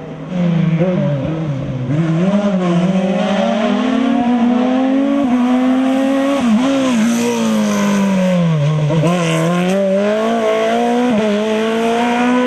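Race car engine revving hard through a slalom course, its pitch climbing and dropping again and again as the car accelerates and slows between the cones.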